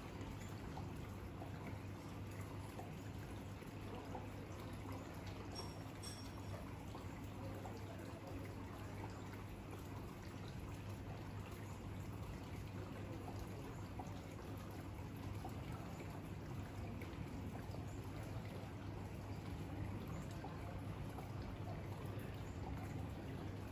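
Rainwater running and trickling steadily off the roof after a heavy cloudburst, with a steady low hum underneath.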